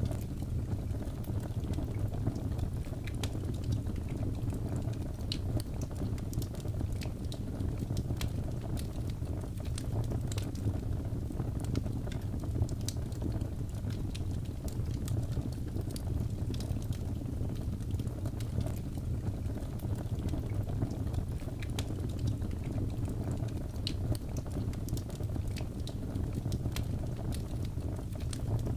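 Wood fire burning: a steady low rumble of flames with frequent small, sharp crackles and pops scattered irregularly throughout.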